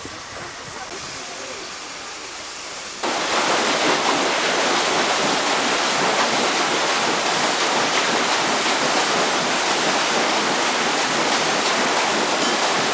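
Steam paddle wheel of the PS Melbourne churning the river water: a loud, steady rush of water that starts abruptly about three seconds in, after a quieter stretch.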